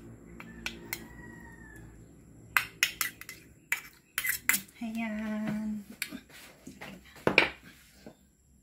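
Two metal spoons clinking and scraping against each other while scooping bukayo and pushing it off onto a banana leaf: a string of sharp clicks, the loudest near the end. A brief hummed voice sounds about halfway.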